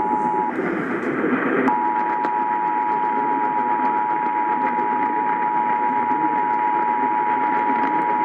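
Emergency Alert System two-tone attention signal (853 and 960 Hz together) heard over a broadcast radio receiver through steady static. The tone drops out about half a second in and returns about a second later, holding steady to herald the Minnesota required monthly test.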